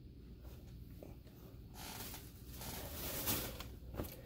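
Faint rustling of clothing fabric being handled and moved, with a few small knocks.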